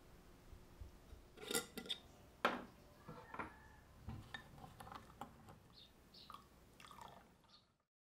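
A metal spoon clinking and scraping in a glass tumbler while sugar and instant coffee are stirred, with a few louder knocks of glass and metal about one and a half and two and a half seconds in. The sounds stop suddenly just before the end.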